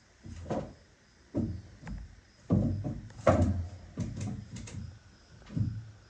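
A series of irregular dull thuds and knocks from building work, about seven in six seconds, some with a sharper click on top.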